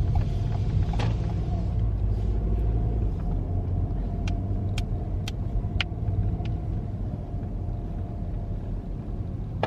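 Car road noise heard from inside the cabin while driving: a steady low engine and tyre rumble. A short run of sharp ticks about twice a second comes about halfway through.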